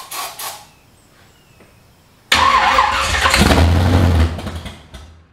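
A short hiss of aerosol starting fluid sprayed into the carburettor, then the 1972 Chevy C10's engine suddenly fires about two seconds in and runs for about two seconds on the starting fluid before fading away.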